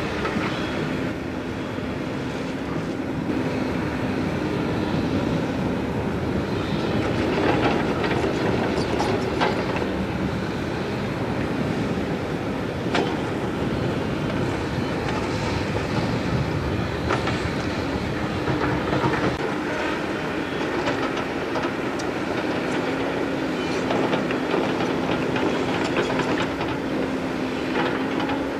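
Caterpillar 308E mini excavator at work: its diesel engine and hydraulics hum steadily, shifting pitch now and then, while the bucket and steel tracks clank and scrape against the dirt.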